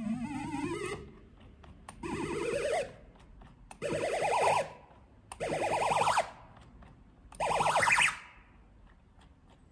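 Chipsounds chiptune software synthesizer, played from an Arduino MIDI mouse controller, sounding five short buzzy notes about a second and a half apart, each sliding upward in pitch like a small siren. The notes waver, with their modulation set by the mouse wheel acting as the mod wheel.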